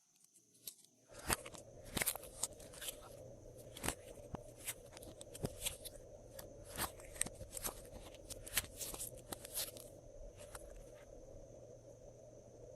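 Glossy slime being mixed and squeezed by hand, giving a run of sharp, wet clicks and pops, several a second, that thin out about ten seconds in. A steady low hum sits underneath from about a second in.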